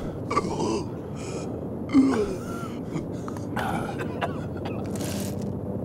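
A man choking on food: a series of short gasps and strained throat sounds, the loudest a sharp gasp about two seconds in.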